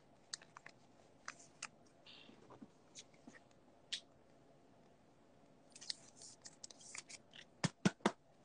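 Faint, scattered light clicks and crinkles of trading cards and foil card-pack wrappers being handled, getting busier in the last couple of seconds.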